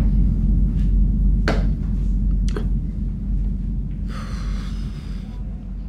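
Snooker balls clicking sharply against each other a few times as a shot is played, over a steady low rumble, with a short hiss about four seconds in.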